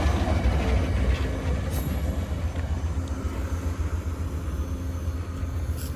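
Train rolling on the rails with a steady low rumble that slowly fades.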